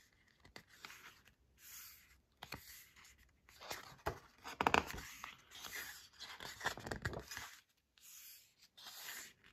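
Pages of a glossy photobook being turned and smoothed by hand: irregular paper rustling and sliding swishes, loudest around the middle as a page is flipped over.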